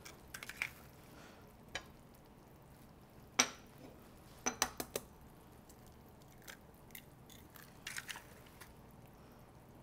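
Eggs being tapped and cracked against a small white ceramic ramekin: scattered taps and clinks of eggshell on ceramic, the sharpest clink about three and a half seconds in.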